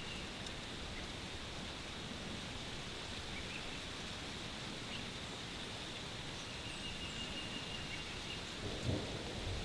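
Steady outdoor hiss of breeze in the trees and leaves, with a couple of faint, thin high tones and a short soft low thump near the end.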